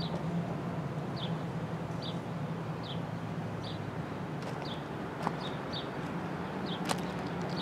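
Steady low rumble of a distant GE Dash 9-40CW diesel locomotive approaching along the line. Over it a bird gives short, falling chirps about once a second.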